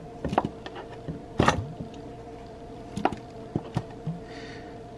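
Plastic drink bottle squeezed and pressed against a plastic bowl while sucking up an egg yolk: a handful of sharp plastic clicks and knocks, the loudest about a second and a half in, over a faint steady hum.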